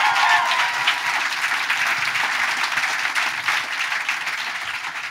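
Audience applauding after a live poetry reading, with a brief whoop over the clapping at the start. The applause gradually dies away.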